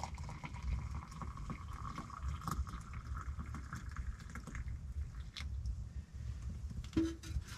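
Coffee being poured from a stovetop percolator into a cup. The pouring tone rises a little and stops about four seconds in, over a steady low rumble and scattered small clicks, with a short knock near the end.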